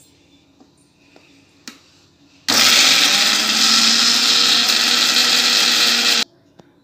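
Prestige mixer grinder running for about four seconds, grinding garlic and ginger in its small steel jar, starting and cutting off abruptly. A few light clicks of the jar and lid being fitted come before it starts.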